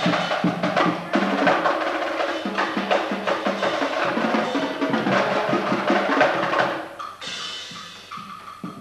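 Marching drumline of snare and tenor drums playing a fast rhythmic passage together. The playing drops away and gets much quieter about seven seconds in.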